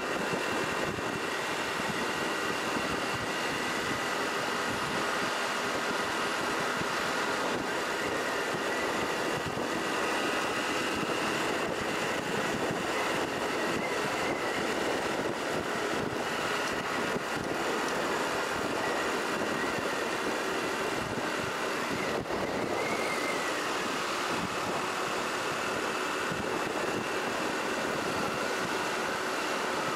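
Motor vehicle engine running steadily under continuous road and wind noise, with faint wavering tones that rise and fall slightly.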